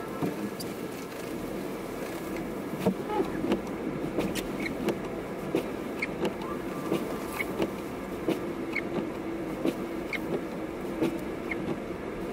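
Car driving on a snow-covered road: steady road and engine noise, with sharp ticks and knocks coming irregularly, about one or two a second.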